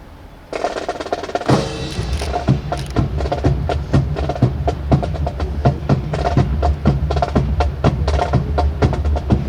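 Marching drums of a rifle drill team playing a cadence: quick, sharp snare strokes over a low continuous rumble, starting suddenly about half a second in.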